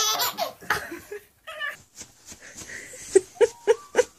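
Baby laughing in short, wavering bursts, then a quick regular run of short soft pulses, about four a second.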